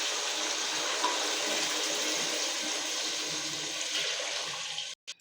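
Broth being poured into a hot pot of fried onions, meat and spices for pilau: a steady rush of pouring liquid that stops suddenly near the end.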